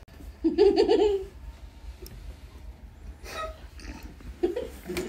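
A loud, pitched, guttural vocal sound about half a second in, lasting under a second, from people holding water in their mouths, followed by fainter muffled splutters.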